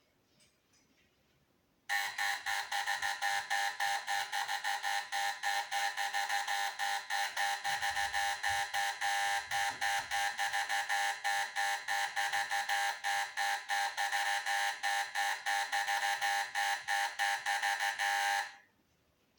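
An electronic alarm buzzer sounding in rapid, even pulses. It starts about two seconds in, holds steady for around sixteen seconds and cuts off suddenly near the end.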